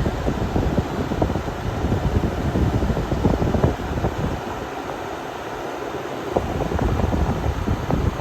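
Fedders 10,000 BTU window air conditioner running, its fan blowing air with rumbling wind buffeting on the microphone that eases off for a couple of seconds midway. The Rotorex rotary compressor is described as absolutely silent, with no noise from it whatsoever.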